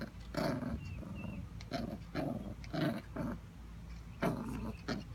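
Jack Russell terrier puppy play-growling in a string of short growls, about one every half second, while it tugs on a tennis ball held in a hand.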